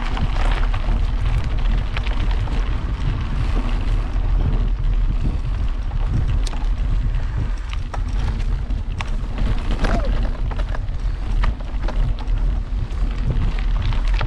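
Wind buffeting the microphone of a moving camera: a steady low rumble, with scattered clicks and rattles.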